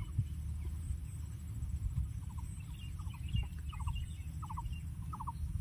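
Domestic fowl calling: a run of short, rapid, pulsed notes repeating about every half second, starting a couple of seconds in, over a steady low background hum.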